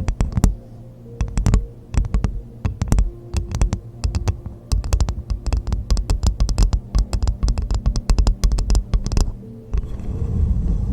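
Coconut shell tapped with fingers, making many quick sharp taps that come fastest in the middle. About nine seconds in, the taps give way to a steady scratchy noise.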